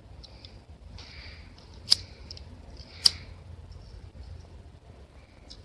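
A lighter being struck: two sharp clicks about a second apart, with short soft hisses around them, as it is lit again and again to set paper alight.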